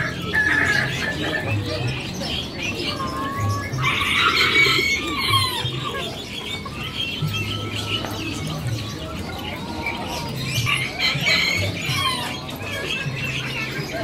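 A chorus of caged birds chirping and calling over one another, with a denser flurry of calls about four seconds in, and music playing underneath.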